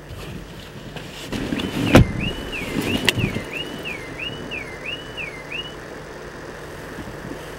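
Car alarm siren warbling, about seven rising and falling sweeps over some four seconds before it cuts off, with two heavy thumps about a second apart near its start.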